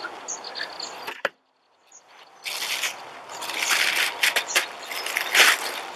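A clear plastic bag crinkling and rustling in irregular bursts as a folded turf golf mat is handled inside it, starting after a brief moment of silence.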